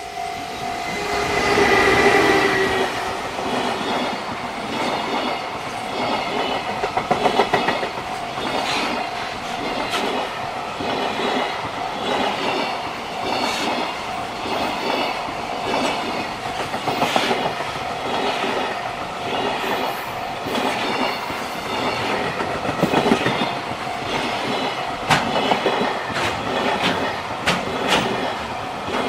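EF210 electric freight locomotive passing close by, loudest about two seconds in, followed by a long string of container wagons whose wheels clatter steadily over the rail joints.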